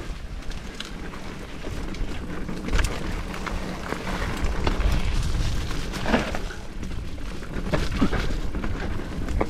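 Mountain bike being ridden on a dirt trail: wind buffeting the microphone and tyre noise, with sharp knocks from bumps about three, six and eight seconds in.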